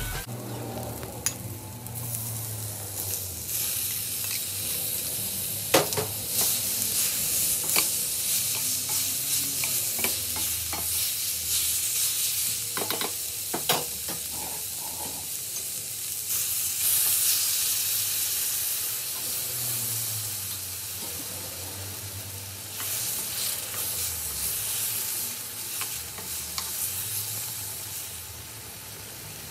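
Chicken and masala sizzling in a small metal balti pan over a gas flame, with a metal spoon scraping and clinking against the pan every now and then, a cluster of clinks about halfway through.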